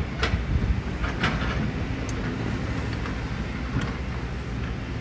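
Diesel engine of heavy construction machinery running with a steady low rumble, with a few sharp knocks and clanks spread through.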